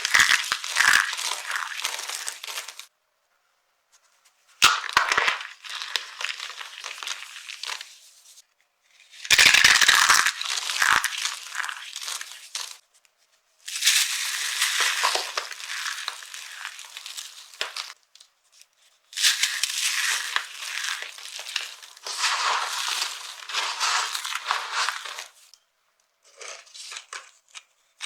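Dry soap being crushed and crumbled by hand, a dense crackling crunch. It comes in about six bouts of a few seconds each, with short silent pauses between them.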